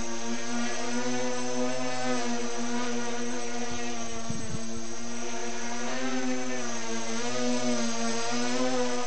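Electric motors and propellers of a small tricopter drone buzzing steadily in hover, wavering slightly in pitch as it carries an RC glider slung beneath it.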